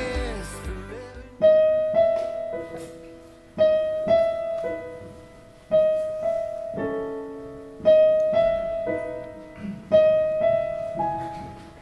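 Piano playing a slow, spacious intro: a low note and chord struck about every two seconds and left to ring and fade, with lighter notes in between. The last of a sung song dies away in the first second or so.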